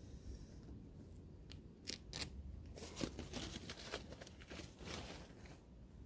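Faint handling of a vinyl car decal and its paper backing: two sharp clicks about two seconds in, then about two and a half seconds of quick crinkling and scraping strokes as the sticker and backing are worked by hand.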